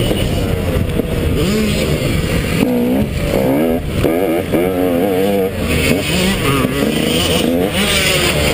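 Motocross bike's engine, heard close from the on-board camera, revving up and down over and over as the bike is ridden hard around a dirt track.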